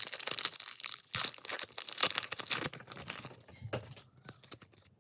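Plastic wrapper of a trading-card pack crinkling and tearing. It is dense crackling for about three seconds, then a few scattered clicks as it is handled.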